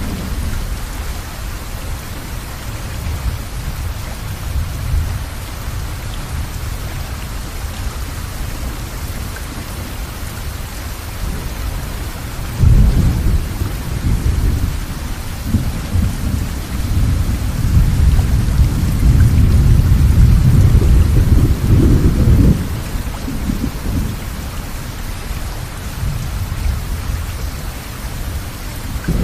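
Steady rain falling, with low rolls of thunder. About halfway through the thunder comes in suddenly and rumbles on for about ten seconds, loudest near its end, then drops back to the rain alone.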